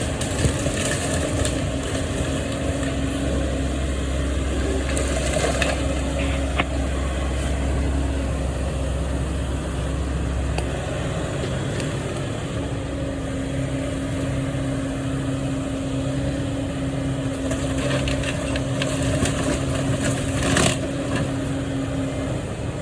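Heavy demolition machinery's engine running steadily, with a deep rumble that drops away about halfway through. A few short knocks and crackles sound over it.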